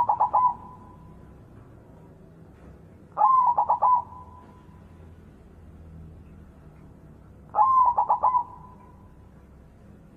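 White zebra dove (perkutut) cooing. Two full song phrases about four seconds apart, each a rising opening note followed by a quick run of four or five stuttered coos, with the tail of another phrase right at the start.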